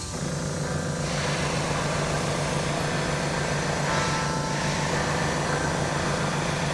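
Gravity-feed airbrush spraying a white base coat onto a wooden jerkbait body: a steady hiss of air and paint, over a low steady hum.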